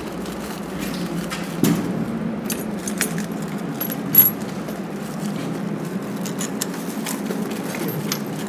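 Small metallic clinks and knocks as nuts and washers are worked onto threaded steel hanger rods, with plastic wrapping rustling, over a steady low background hum. A sharper metallic tap about four seconds in.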